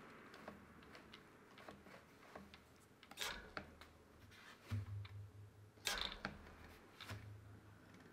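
Front wheel of a road bike spun by hand, turning with faint, light ticking, plus two sharper clicks of handling about three and six seconds in, as the hydraulic disc brake caliper is checked for rotor rub.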